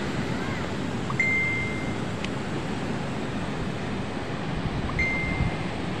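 Wind rushing on the microphone with surf behind it, broken twice by a short, steady high tone: the first lasts about a second, the second, near the end, about half a second.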